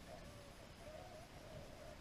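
Pack of beagles baying faintly in the distance: a wavering chorus of drawn-out, overlapping hound voices, the pack giving tongue as it runs a rabbit's trail.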